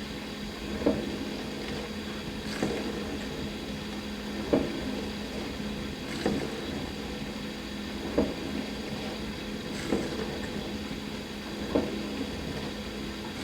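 Dishwasher running mid-wash: a steady spray of water and a steady hum, with a dull knock about every two seconds.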